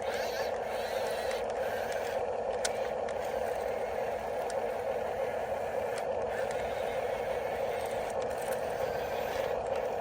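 Small electric motors and plastic gearboxes of a radio-controlled construction model, such as a Huina excavator, running with a steady whine, with faint scraping of dirt.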